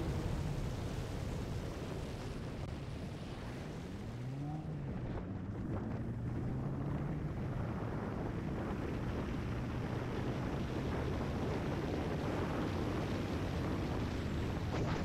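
Lotus Elise driving, heard from a front-mounted onboard camera: a steady engine note under tyre noise on wet tarmac and wind on the microphone. The engine note rises about four seconds in, then holds steady.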